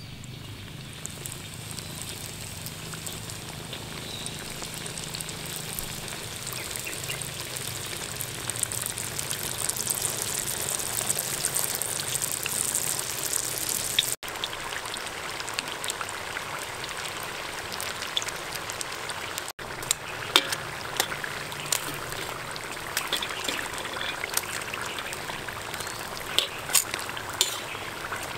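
Spring rolls deep-frying in hot oil in a wok: a steady sizzle that builds over the first several seconds, with crackling and sharp snaps from the later part on.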